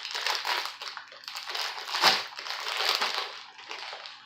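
A plastic chip bag crinkling and rustling as it is handled just after being opened, with a louder sharp crackle about two seconds in.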